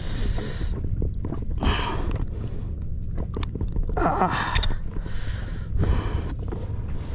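A man breathing hard, with a noisy breath about every second. One drawn-out breath about four seconds in falls in pitch like a groan. A steady low rumble runs underneath.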